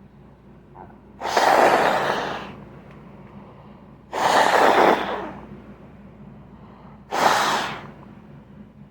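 A person blowing their nose three times, each a hard rush of air about a second long that starts suddenly and fades, about three seconds apart.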